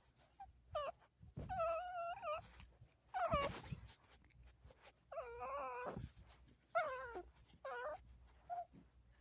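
A dog whining and whimpering in a string of about seven high-pitched cries. The longer ones waver up and down in pitch.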